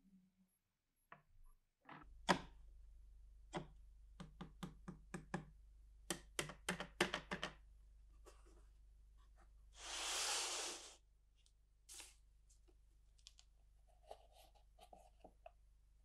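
A quick run of sharp clicks and knocks as hard glass and acrylic lantern lenses are handled and set down on a wooden workbench, followed about ten seconds in by a second-long rustling hiss and then a few soft taps.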